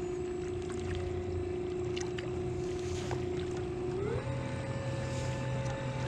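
Kayak's electric thruster motor running with a steady whine, which glides up to a higher pitch about four seconds in as the motor speeds up.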